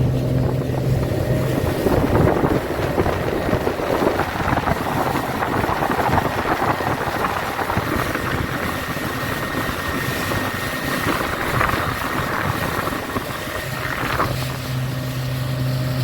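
Motorboat running on plane at cruising speed, about 4000 rpm: a steady engine hum mixed with loud wind and water noise. The rush of wind and water covers the engine for most of the middle, and the hum comes through clearly again near the end.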